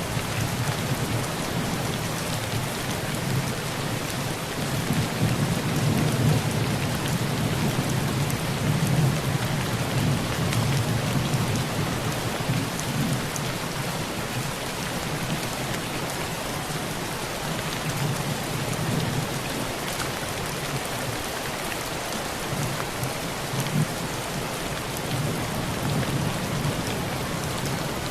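Heavy rain drumming steadily on a tin roof, with thunder rumbling low underneath that swells and fades several times.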